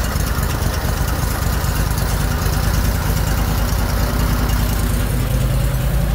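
Freshly rebuilt Kohler Command CH670 22 HP V-twin engine in a Cub Cadet GT2550 garden tractor, running steadily. Its note changes slightly about five seconds in.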